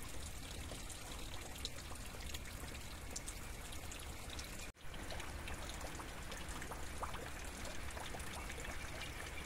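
Steady rain falling outdoors, an even hiss with a few faint scattered drips. The sound cuts out for a moment about halfway through.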